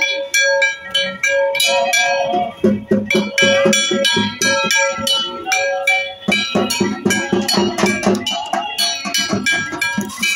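A small bell-metal gong (kansar) struck rapidly and unevenly with a stick, ringing with each hit. Dhak drum beats join about two and a half seconds in.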